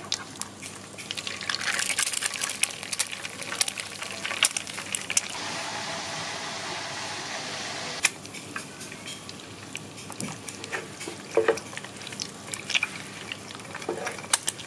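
Eggs frying in hot oil in a nonstick pan: a steady sizzle with scattered crackles and pops. The sizzle grows louder a couple of seconds in and cuts back suddenly around the middle.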